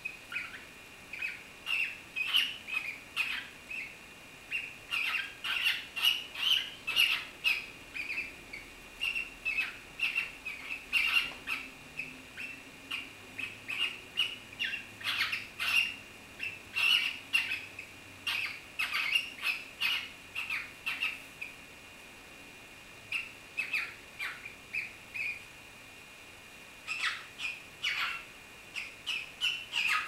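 Cockatiels mating, one mounted on the other, giving short, rasping squawky chirps in quick runs of about two to three a second. The calling stops twice for a second or two in the last third.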